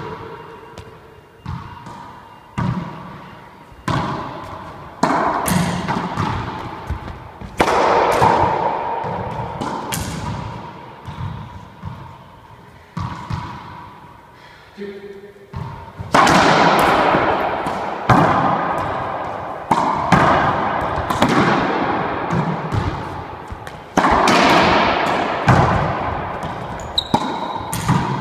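Racquetball in play: a string of sharp smacks as the ball is struck by racquets and hits the court walls, each one ringing out in the hard-walled court. In the first few seconds there are softer, spaced knocks as the ball is bounced on the floor before the serve.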